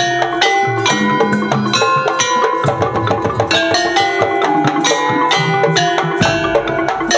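Madurese daul (tongtong) ensemble playing a fast, dense rhythm: bamboo slit drums and drums under many ringing, pitched percussion strikes.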